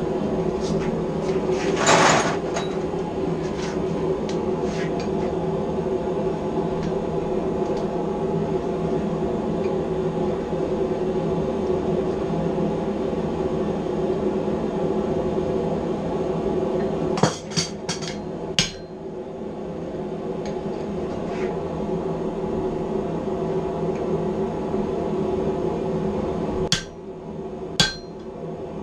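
Hammer blows on a chisel held against hot steel on an anvil, a few sharp ringing strikes in short groups, over a steady droning hum.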